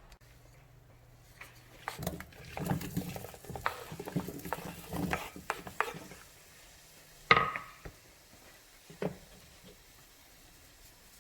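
Kitchen utensils scraping and clattering against a pot and dishes for a few seconds. Then comes one sharp clink that rings briefly, and later a single knock.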